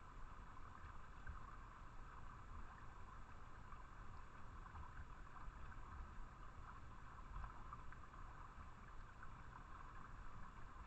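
Faint, steady trickle of a small stream, an even hiss with a light crackle and a low rumble beneath it.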